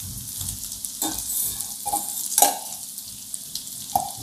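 Baby potatoes sizzling in hot oil in a stainless steel kadai, with metal tongs knocking and scraping against the pan a few times as the potatoes are lifted out.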